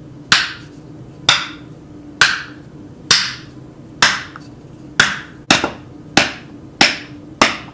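Mallet repeatedly whacking a metal punch set into the top of a young Thai coconut to break through the shell. About ten sharp knocks, roughly a second apart at first, then coming faster.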